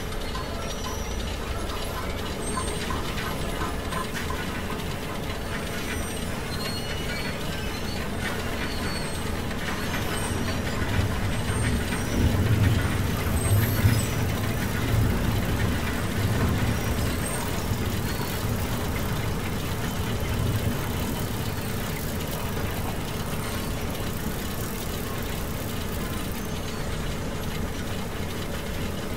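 Steady machine-like running noise with a faint steady hum, swelling into a low rumble for several seconds around the middle.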